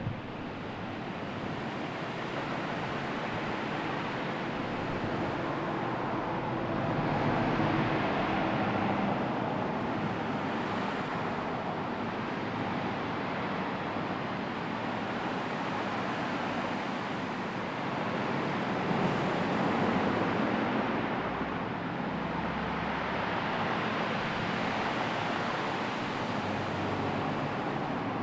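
Sea surf and wind: a steady rushing wash of waves, swelling twice, about a quarter of the way in and again about two-thirds in.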